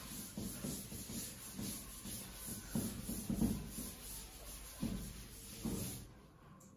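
Faint hand-writing sounds: irregular soft scratching and rubbing strokes of a writing tool that stop about six seconds in.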